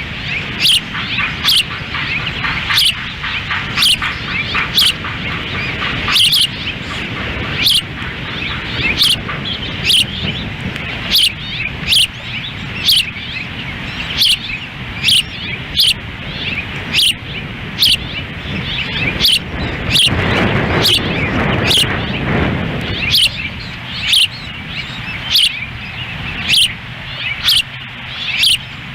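Osprey calling a long series of short, high chirps that fall in pitch, repeated about once or twice a second. Wind rumbles on the microphone underneath, with a stronger gust about two-thirds of the way through.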